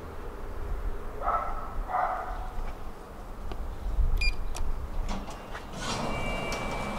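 Lift cabin running with a low steady rumble. A dog barks twice, about one and two seconds in. Near the end a steady high tone sounds as the lift reaches the ground floor.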